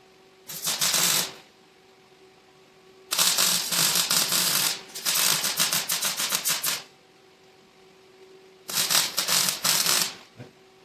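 MIG welder arc crackling in four bursts of one to two seconds each, with short pauses between: welds being laid on the truck's frame rail. A faint steady hum carries on in the gaps.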